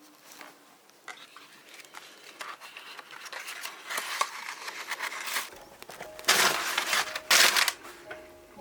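Rustling, crinkling and clicking of parts and packaging being handled, louder in bursts about six and seven seconds in.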